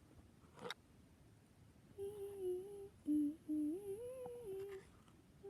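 A person humming a short, wavering tune for about three seconds, starting about two seconds in. A single click comes shortly before.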